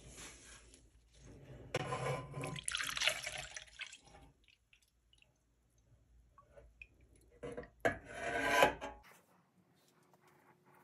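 Melted candle wax being poured from a pot into a stainless-steel pouring pitcher, trickling and splashing in two spells of about two seconds each.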